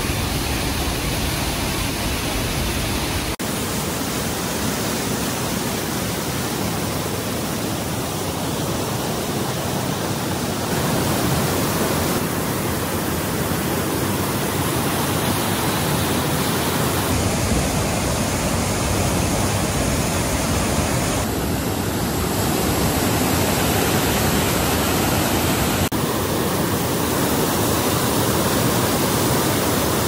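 The Rhine Falls at high water: a loud, steady rush of falling water with no break. Its tone shifts abruptly about five times where one shot cuts to the next.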